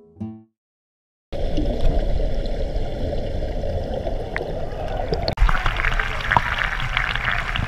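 Diverted river water gushing out of a street sluice and flooding across the paving: a steady rush of water that starts suddenly about a second in and turns splashier about halfway through.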